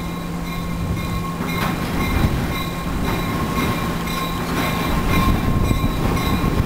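Diesel locomotive rolling slowly across a steel drawbridge, its engine rumble growing louder near the end, with a few sharp clanks from the wheels on the bridge rails.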